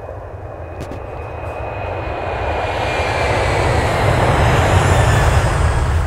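An aircraft passing overhead: its engine noise builds steadily to a peak near the end, with a faint high whine sliding downward in pitch.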